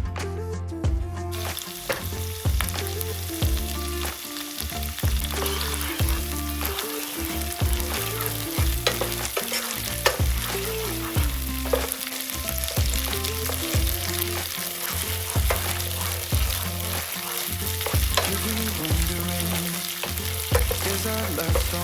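Food frying in a hot pan: a steady sizzle, with stirring.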